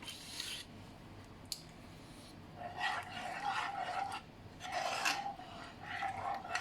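A kitchen utensil scraping against cookware, three rasping strokes in the second half.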